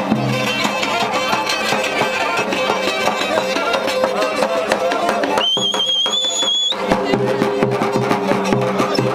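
Black Sea folk music played live on kemençe and davul for a horon line dance: a fast, dense drum beat under a busy high melody. About halfway through, a shrill whistle cuts in for about a second and a half, rising at its end.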